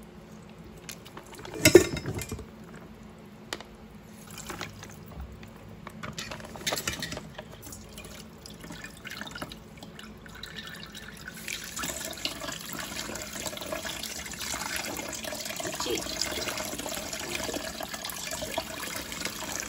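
Shirataki rice and its packing water being drained into a stainless mesh strainer in a steel sink: a sharp metal knock about two seconds in, then light clicks, drips and splashes as the rice is handled. From about twelve seconds in, a steady rush of running water.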